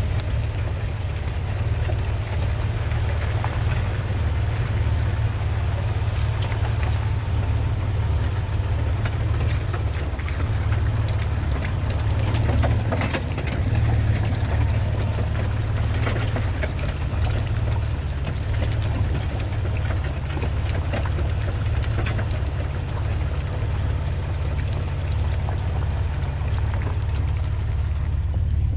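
Four-wheel-drive vehicle driving slowly with a steady low rumble, water splashing around it and scattered taps of rain.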